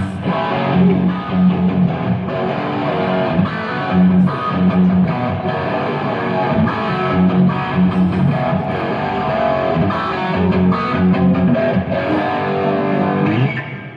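Amplified live band playing, an electric guitar leading with quick runs over bass guitar; the music breaks off at the very end.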